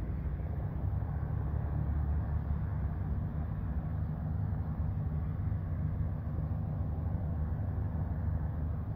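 A steady, low engine rumble running evenly, with no rise or fall in pitch.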